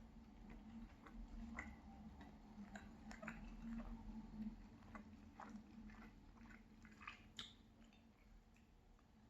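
Faint close-up chewing of a cheese pancake: irregular wet mouth clicks and smacks, over a steady low hum.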